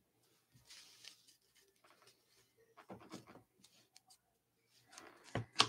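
A stack of baseball trading cards being picked up and handled: faint rubbing and sliding of the cards against each other, then a couple of sharp clicks near the end.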